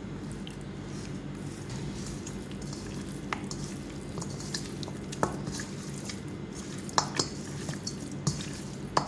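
Hands mixing raw chicken wings with dry spices in a stainless steel bowl: soft wet handling sounds with a few sharp clicks as wings or fingers knock the bowl, over a steady low hum.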